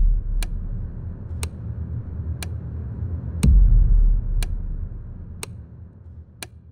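Film score: a sharp tick once a second over a deep bass drone that swells up twice, about three and a half seconds apart, and fades away after each swell.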